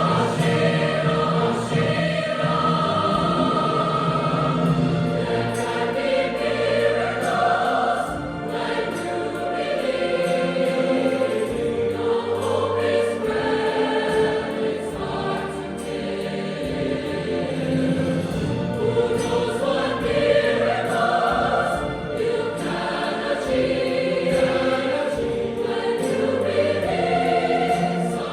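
A choir singing in parts with accompaniment, held notes shifting from chord to chord.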